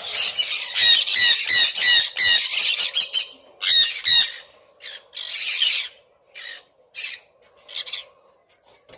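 Sun conures screeching: a dense run of shrill, harsh calls for about three seconds, then separate short calls that thin out toward the end.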